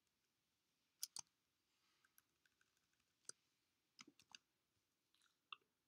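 Near silence broken by a few faint computer mouse clicks: a pair about a second in, one after three seconds, another pair around four seconds and a couple near the end.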